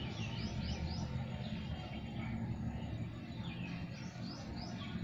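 Birds chirping: quick series of short, high, arched notes, one near the start and another around four seconds in, over a steady low rumble.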